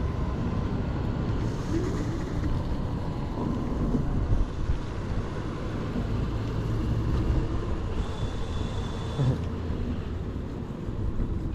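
Steady low rumble of wind and road noise from riding a dual-motor Kaabo Mantis electric scooter, with a brief thin high whine about eight seconds in.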